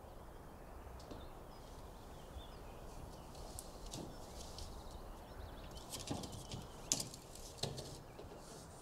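Faint room hush with scattered small clicks and knocks from things being handled, a few about three to four seconds in and a denser run from about six to eight seconds in, the sharpest near seven seconds.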